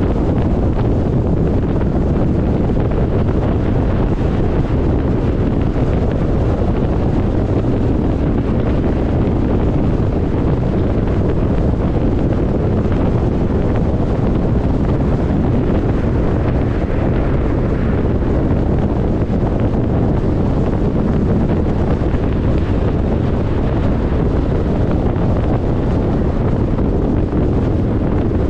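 Steady road and wind noise of a car travelling at highway speed, a constant low rumble and hiss with no breaks.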